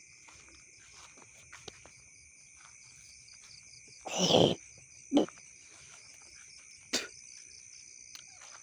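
Night insects such as crickets chirping steadily in several high-pitched bands, broken about four seconds in by a loud half-second burst of noise, with a shorter sharp sound a second later and a faint click near seven seconds.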